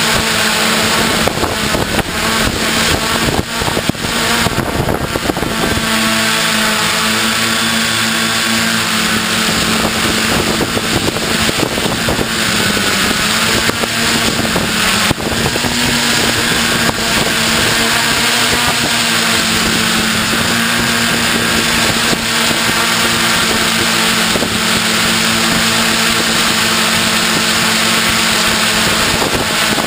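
Multirotor drone's electric motors and propellers running with a steady buzzing whine whose pitch wavers slightly as it holds and adjusts its flight. Some crackling buffeting in the first few seconds.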